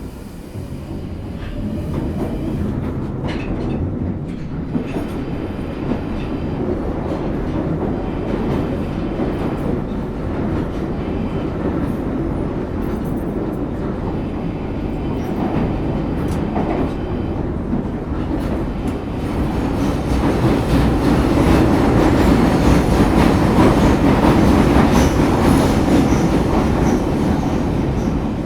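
Northern line tube train heard from inside the carriage as it runs through the tunnel: a steady low rumble with the clatter of wheels on rail. It builds over the first couple of seconds and grows louder again about twenty seconds in.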